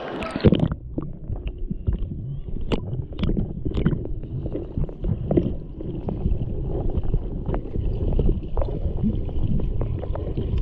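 Muffled underwater sound picked up by a submerged camera: water rushes over it as it goes under about half a second in, then a low, dense rumble of moving water with scattered bubbly clicks and knocks.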